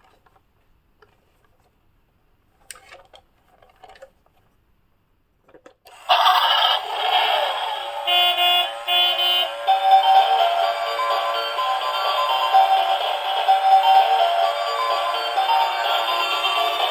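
A few faint clicks, then about six seconds in a battery-operated musical toy vehicle starts playing a loud electronic tune that keeps going, with no low notes.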